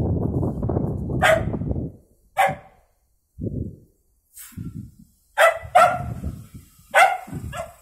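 A dog growling and barking aggressively at a cat: a long low growl, then about five sharp barks, two of them close together past the middle, with shorter low growls between.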